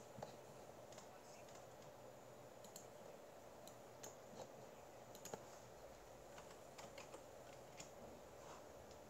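Near silence: a faint steady hiss with scattered faint clicks at uneven intervals.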